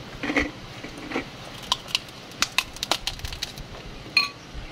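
Mouth-close crunching and crackling of kerupuk crackers being bitten and chewed, a run of small sharp crackles, with a brief ringing clink of cutlery on a dish near the end. The crackers have gone slightly stale, a little chewy.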